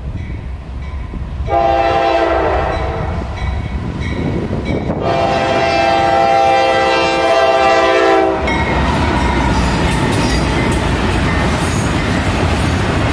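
Norfolk Southern freight locomotive's air horn sounding for a grade crossing: a shorter blast about a second and a half in, then a long blast of about three and a half seconds. The locomotive then passes and the double-stack intermodal cars roll by with a steady loud rumble of wheels on rail.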